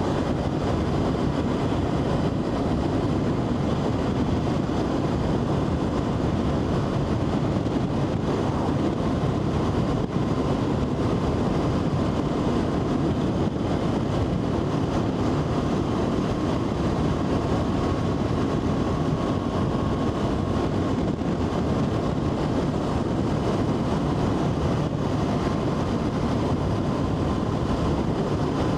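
Steady engine, tyre and wind noise of a motorcycle cruising at an even speed, with no change in pace.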